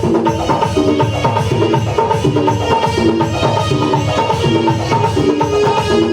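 Loud music played through a sound system: a fast, dense hand-drum-style beat under a repeating melody of short held notes.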